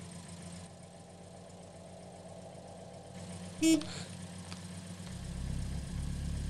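A car engine running low and steady, with one short car-horn toot a little past halfway; the engine then grows louder near the end, as if the car is closing in.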